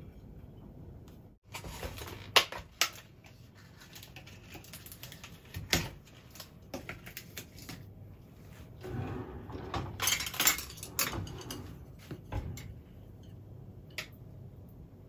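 Kitchen handling sounds: a ceramic plate knocking and sliding on a stainless-steel sink counter, with scattered clinks and clicks and a busier stretch of clatter and rustling about ten seconds in.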